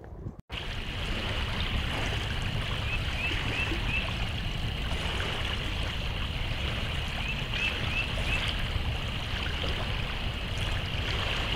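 Steady running water, like a stream, starting after a short break about half a second in, with two brief groups of faint high chirps.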